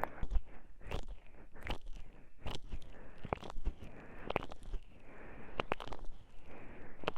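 Close-up crackles, clicks and soft rustling of something handled right against a binaural microphone. The crackles come irregularly, about one a second.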